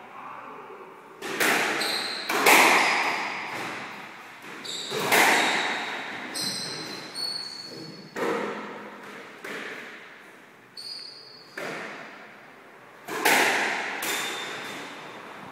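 Squash rally: about a dozen sharp smacks of the ball off rackets and the court walls, each ringing briefly in the court, the hardest coming every few seconds. Short high squeaks of court shoes on the floor sound between the hits.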